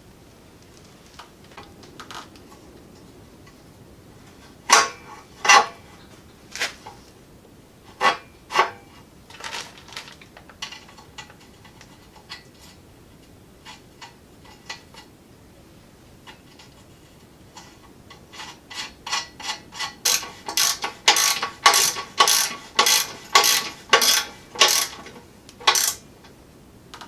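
Hand tools and metal parts clicking and clinking as parts are fitted back onto a mini bike frame. Scattered single knocks come first, then near the end a quicker run of sharp metallic clicks, about two a second.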